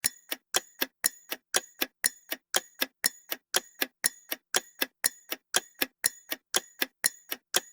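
Clock-ticking countdown sound effect: sharp, even ticks about four a second, marking the quiz's guessing time running down.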